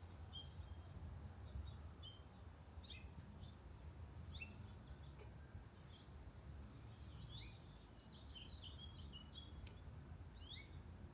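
Faint, short bird chirps, scattered at first and then a quicker run of chirps in the later part, over a steady low background rumble.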